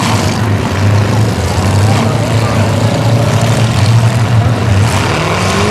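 Demolition derby cars' engines running loud together, revs rising and falling, with a pitch that climbs near the end.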